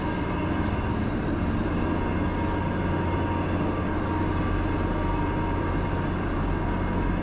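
Steady low background hum, unchanging throughout, with a faint steady tone above it.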